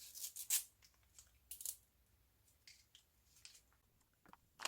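A pet-treat packet being handled and torn open, in a few short crinkling rustles with small ticks between them.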